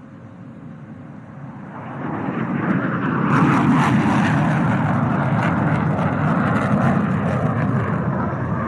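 JF-17 Thunder fighter's single Klimov RD-93 turbofan at take-off power. The jet noise swells over about three seconds as the aircraft comes by, then holds loud with a crackling edge.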